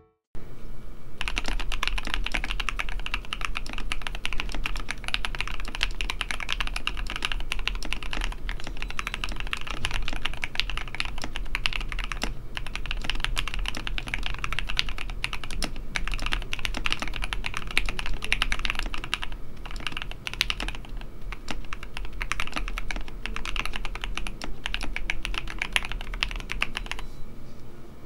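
Fast, continuous typing on a KBD67 Lite R2 mechanical keyboard with a polycarbonate case, Durock Lavender switches lubed with 205g0 and filmed, Durock V2 stabilizers and PBT keycaps. It is a dense, irregular clatter of key presses that stops about a second before the end.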